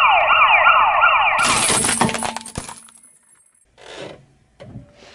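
A siren-like wail rising and falling about two and a half times a second, cutting off about two seconds in. It overlaps a crackling, rasping noise that fades away by about three seconds in, and a short rasping burst follows near four seconds.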